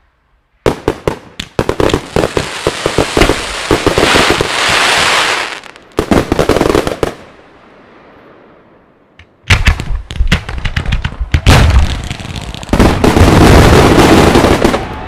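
Fireworks display: a rapid volley of shell bursts and crackling starts about a second in and dies down to a faint crackle. From about ten seconds on a second, louder barrage of rapid bangs and bursts follows.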